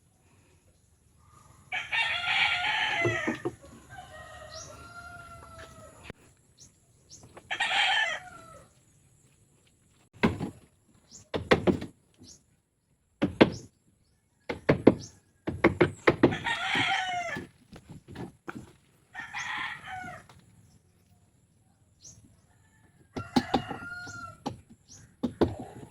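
Roosters crowing repeatedly, about five crows of a second or so each, with sharp clicks and knocks in between.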